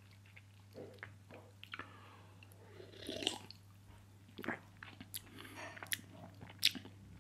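A person sipping a carbonated soda from a can and swallowing, followed by soft lip smacks and small mouth clicks while tasting it.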